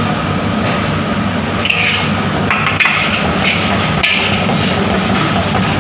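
Metal spatula scraping and knocking rapidly against a wok while chicken and vegetables are stir-fried.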